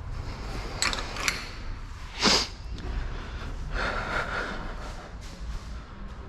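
A person's sharp, hissing breath or snort a little over two seconds in, with a softer breath about four seconds in, and two light clicks just before.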